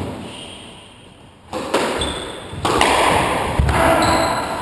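Squash rally starting about a second and a half in: the ball cracking off rackets and walls, with short squeaks of shoes on the wooden floor between hits.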